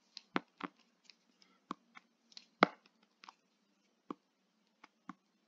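Stylus tapping and writing on a tablet screen: about a dozen short, sharp ticks at irregular intervals, the loudest a little past halfway.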